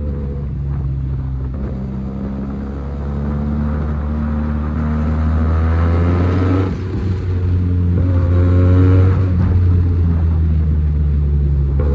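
SRK 400 motorcycle's engine and exhaust running under way. The revs climb, drop sharply a little past halfway, then climb again.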